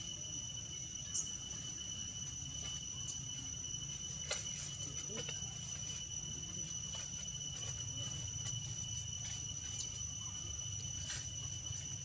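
Steady high-pitched insect drone, one even tone with a higher overtone, over a low background rumble. A few short clicks come about a second in, around four seconds in, and near the end.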